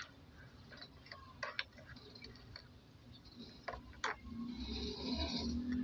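Metal spoon stirring a drink in a ceramic mug, clinking against the mug's sides at irregular moments. Near the end the stirring becomes a steadier scraping swish.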